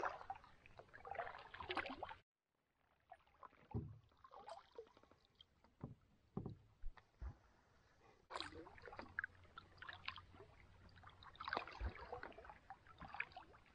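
Faint sounds of a canoe being paddled on calm water: paddle strokes and drips, with a few short soft knocks.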